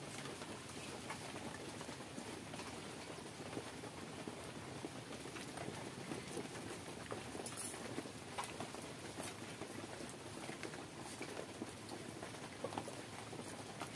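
Fingers squeezing and mixing soaked pakhala rice in a stainless steel bowl of water: irregular soft wet squelches and small clicks, a few sharper ones now and then.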